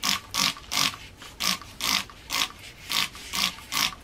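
Hand trigger spray bottle squirting water in a quick series of short hissing sprays, about two a second, wetting fresh cement.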